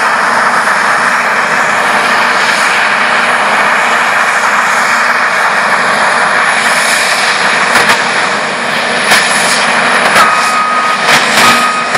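New Holland CR9090 combine harvester running steadily under load as it cuts wheat and unloads grain into a trailer driven alongside, a constant dense mechanical drone. In the second half a few sharp clicks are heard, and near the end a steady high beep starts, breaks off briefly, then sounds again.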